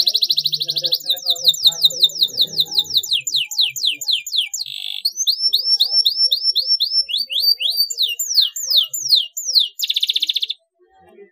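Domestic canary singing a long song. It opens with a fast rattling trill, then a run of quick down-slurred whistles about six a second, a short buzzy note, a string of short rising notes, and more down-slurred whistles. It closes with another fast trill and stops abruptly about ten and a half seconds in.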